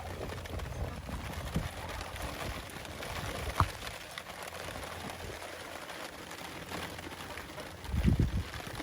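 Steady rain hiss, with a sharp knock about three and a half seconds in and a low thump near the end.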